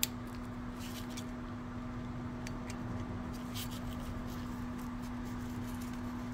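A few light clicks and taps from hands working the rear brake rotor and hub, the sharpest one right at the start, over a steady low hum.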